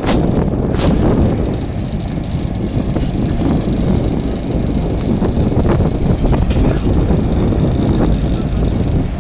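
Fishing boat under way: a steady low engine-and-hull rumble mixed with wind buffeting the microphone, with a few short sharp knocks or splashes about one, three and six and a half seconds in.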